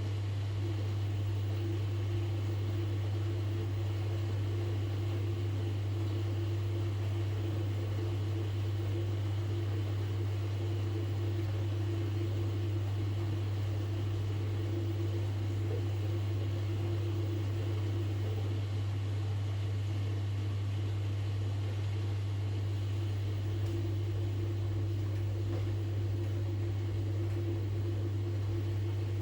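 Washing machine running with a steady, unbroken motor hum.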